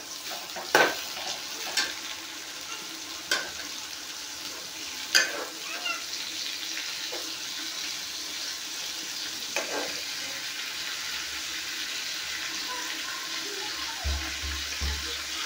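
Sabzi frying in oil in an aluminium kadhai on a gas stove: a steady sizzling hiss while it is stirred, with a few sharp metal knocks and clinks from the ladle and utensils in the first half.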